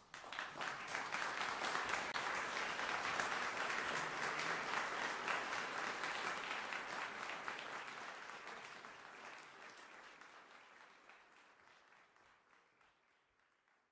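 Applause from a crowd, many hands clapping. It starts suddenly, holds for a few seconds and then fades out slowly to silence.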